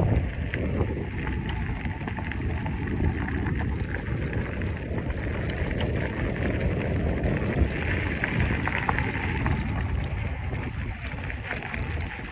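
Wind buffeting the microphone while riding a bicycle: a steady low rumble of rushing air, with scattered faint ticks.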